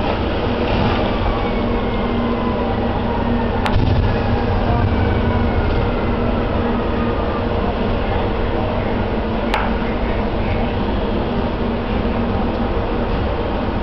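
Steady low drone of fire apparatus running at a house fire, with a faint whine gliding slowly downward over the first several seconds and two sharp pops, about 4 and 10 seconds in.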